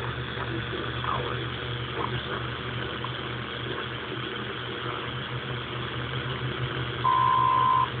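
Homebrew software-defined radio tuned to the WWV time station on 20 MHz AM, heard through its speaker: a steady hiss of static with a low hum and faint garbled traces in the noise. About seven seconds in comes one clear steady beep lasting just under a second, WWV's top-of-the-minute tone. The reception is heavily distorted, which the builder puts down to unfinished filtering and signal processing.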